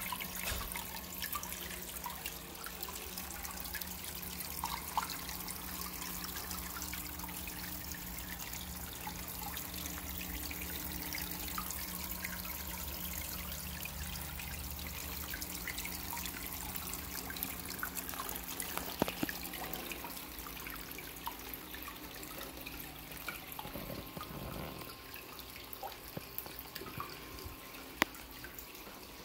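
Water trickling and dripping steadily in an aquarium-and-planter setup, with scattered small drips over a faint steady low hum, growing a little fainter in the last few seconds.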